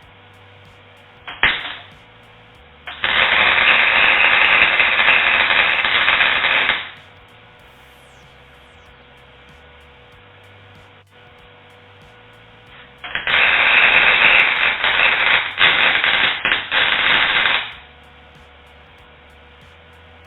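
Welding arc crackling in two long runs of about four seconds each, with a short burst just before the first; a faint steady hum runs between them.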